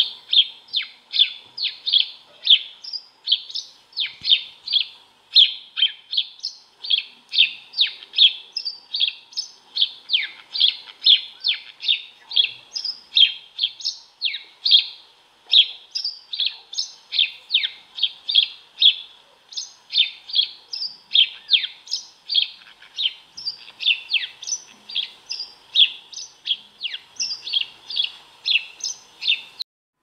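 House sparrow chirping: a quick, unbroken run of sharp chirps, about three a second, that stops abruptly near the end.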